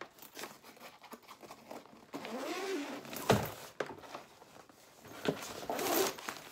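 Rustling of a suitcase's fabric lining and divider as it is handled and moved, with one sharp click or knock a little past halfway and a few lighter ticks.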